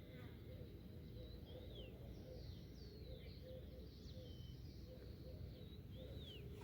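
Birds chirping, a string of short calls that fall in pitch, over a steady low rush that is likely the flooded river.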